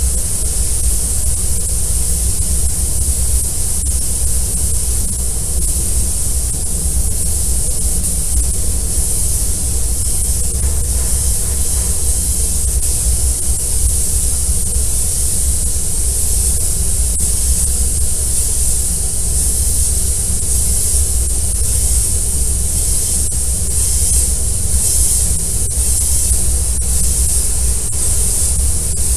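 Steady high hiss of compressed-air spray guns applying quartz glass coating to a car's paint, over a steady low rumble.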